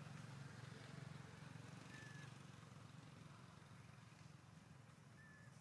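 Near silence: a faint steady low hum, with two short, faint high whistled notes, one about two seconds in and one near the end.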